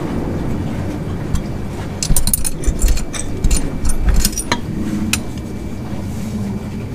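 Metal clinks and taps of a bolt and bracket being fitted by hand at a car's rear motor mount, with a quick run of sharp clicks in the middle. A steady low hum sits underneath.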